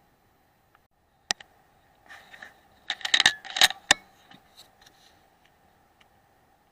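A sharp click, then a short burst of metallic rattling and scraping with several sharp clicks, loudest about three to four seconds in.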